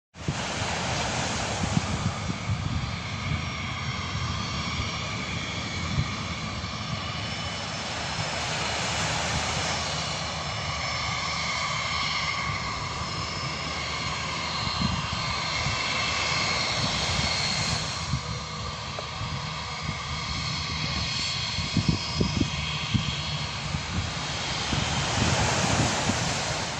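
A passenger airliner's engines running loudly overhead: a steady roar with high whining tones that shift slowly in pitch.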